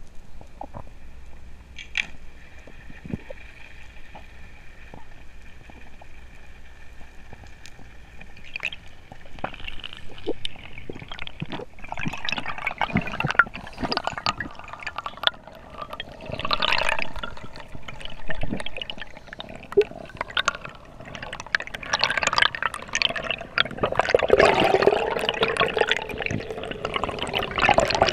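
Underwater sound through an action camera's housing: water sloshing and gurgling, with scattered clicks. A faint steady tone fades out about eight seconds in, and the water noise and clicks grow busier and louder from there on.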